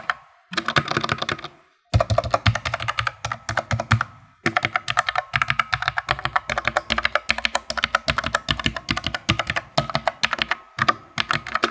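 Fast typing on an Armaggeddon SMK-12R low-profile mechanical keyboard with Outemu Black switches, played as a sound test of those switches. The keys clack in quick runs, broken by brief pauses about half a second in, near two seconds and just after four seconds.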